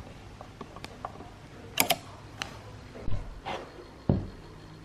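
Small clicks and creaks of a screwdriver driving screws into a pine speaker cabinet, with a sharp double click a little under two seconds in. Dull knocks of the wooden box being handled follow, at about three and four seconds in.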